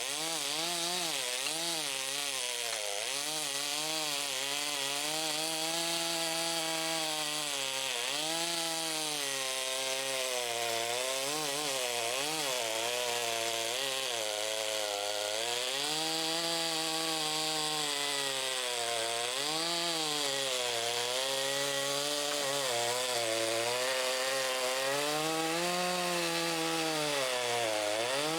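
Makita DCS5121 50 cc two-stroke chainsaw running at high speed and cutting wood without a break. Its pitch keeps dipping and recovering every second or two as the chain loads up in the cut.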